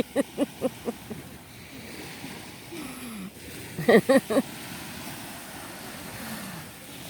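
A woman laughing in short bursts right after her joke, once at the start and again about four seconds in, over a steady wash of surf and wind.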